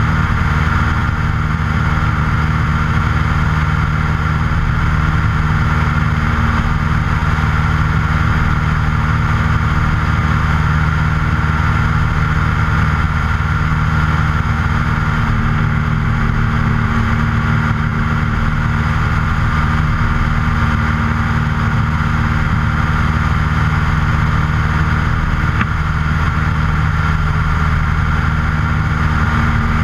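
Luscombe light aircraft's piston engine and propeller running at a steady speed in flight, heard close to the propeller as one even, unbroken drone.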